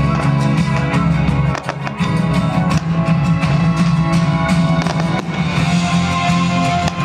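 Music with strummed guitar and drums playing throughout, with sharp firework bangs mixed in.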